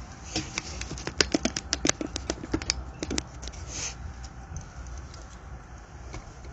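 A quick, irregular run of sharp clicks and taps lasting about three seconds, followed by a short hiss, over a low steady rumble.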